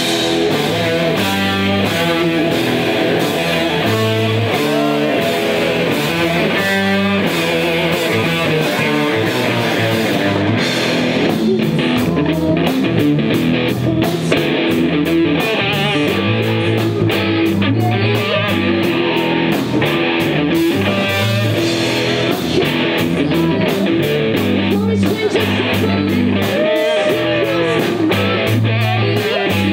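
Live rock band playing, with electric guitar and bass over a drum kit. The cymbals take up a fast, even beat about ten seconds in.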